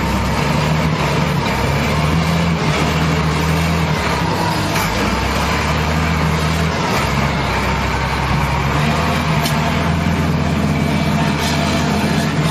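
Diesel engine of a 5-ton wheel loader running steadily at a low, even pitch.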